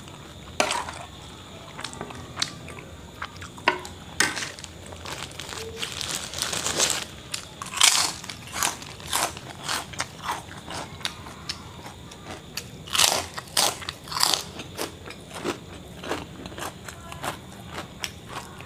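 Close-up crunching bites and chewing of a crisp fried snack held in the hand, in irregular crackly bursts.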